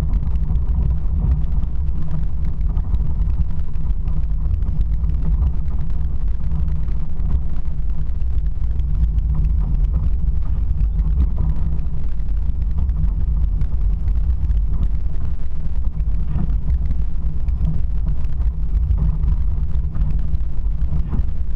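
Steady low rumble of a motor vehicle on the move, engine and road noise holding at an even level.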